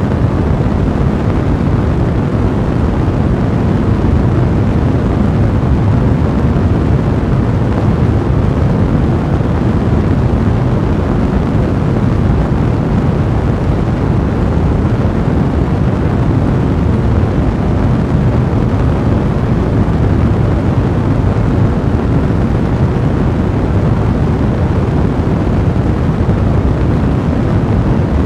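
Fire burning in a fireplace: a dense, steady low rumble of flames, with no single crackle standing out.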